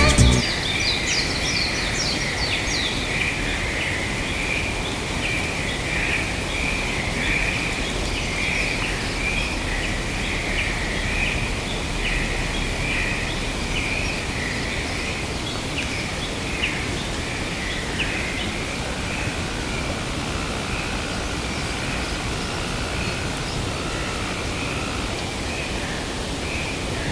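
Forest ambience: a steady hiss with birds calling over and over, high short calls repeating without a break, and a few quick falling chirps in the first seconds.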